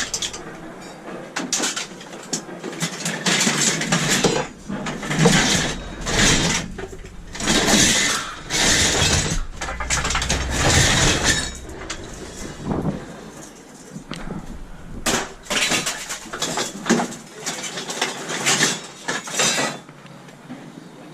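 Scrap metal being worked by hand: irregular metallic clanks, clinks and scraping, one after another.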